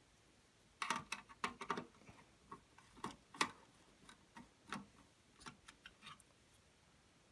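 Irregular light clicks and taps, scattered from about a second in until about six seconds in, from screws, a screwdriver and a plastic clip being handled while a TV's main circuit board is taken apart.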